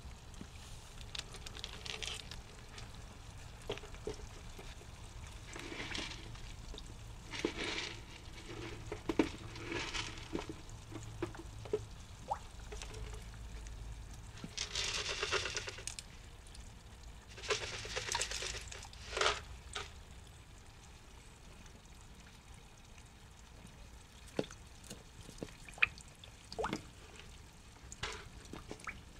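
Water sloshing and splashing at the surface of a small pond in repeated bursts of about a second as Japanese pond turtles surface to snap up floating food pellets. Near the end the splashing dies down and a few sharp clicks are heard.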